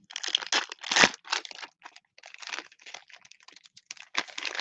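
Cellophane wrapper of a Panini Mosaic cello pack of football cards crinkling and tearing as it is ripped open by hand: a run of irregular crackles, loudest about a second in.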